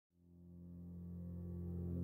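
Intro music fading in: a sustained low chord that swells steadily up from silence.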